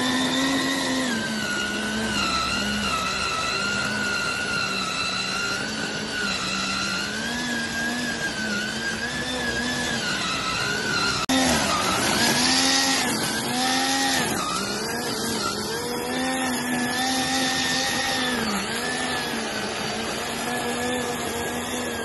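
Motor of a home-built remote-control weed trimmer whining at high speed as it cuts grass, its pitch dipping and recovering again and again. A short louder rush of hiss comes a little past halfway.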